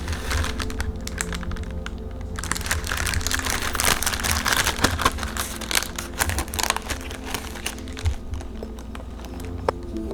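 Background music over close crinkling and crackling handling noise with many small clicks, densest in the middle.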